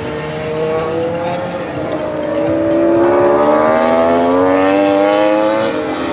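MotoGP racing motorcycle engines running on the circuit, more than one at once, their pitch climbing as they accelerate and dropping a little near the end, loudest around the middle.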